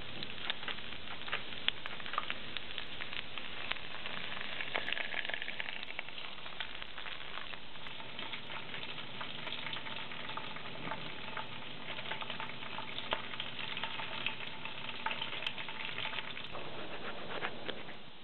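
Chopped ginger and garlic sizzling in hot oil in a pan: a steady frying hiss with many small pops and crackles.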